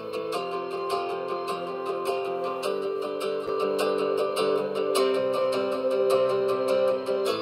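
Background music: a plucked acoustic-guitar tune with a steady strummed pulse.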